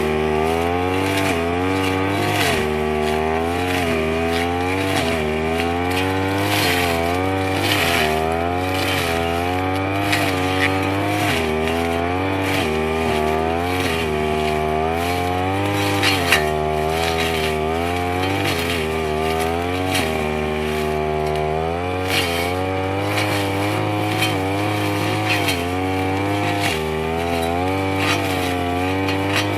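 Brush cutter engine running hard as it cuts grass, its pitch rising and falling again and again as the throttle is worked and the load changes, with short scraping ticks.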